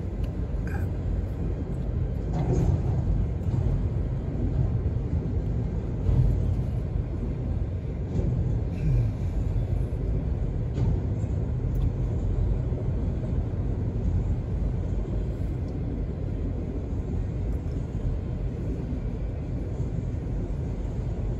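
Freight train of autorack cars rolling past: a steady low rumble heard from inside a car's cabin, with a few faint knocks.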